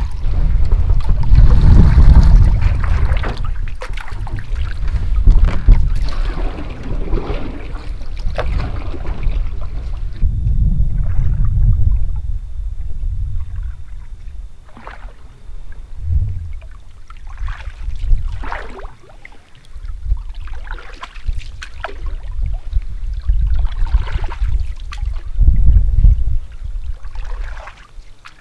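Canoe paddling: paddle strokes swishing and splashing through the water every couple of seconds, over a heavy low rumble that is strongest in the first part.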